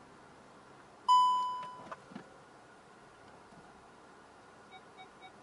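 Skoda Superb's park-assist chime in the cabin: one loud electronic tone that sets in sharply about a second in and fades away over less than a second, with a small click just after. Near the end come three faint quick beeps.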